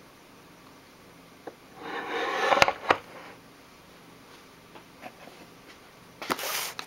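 Packaging and items being handled: a brief rustle about two seconds in with two sharp clicks, a few faint taps, then another short rustle near the end.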